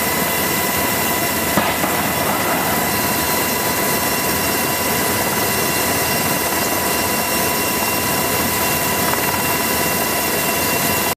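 AH-64E Apache helicopter in flight close by: its turbine engines and rotors make a steady high whine over a constant rushing noise.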